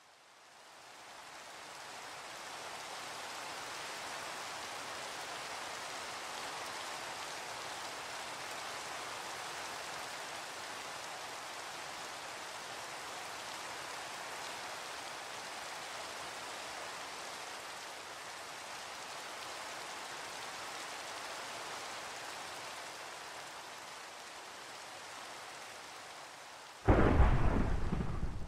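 Steady rainfall that fades in over the first couple of seconds and holds even, then a sudden loud thunderclap near the end that rumbles away over about two seconds.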